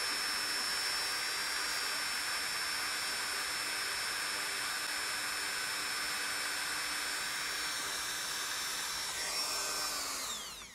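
Corded rotary tool running at high speed with a steady high whine, spinning ABS plastic filament against a cracked ABS fairing to friction-weld it. Near the end it is switched off and its whine falls away as it spins down.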